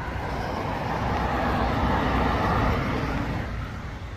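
A road vehicle passing by. The noise swells to a peak about two and a half seconds in, then fades away.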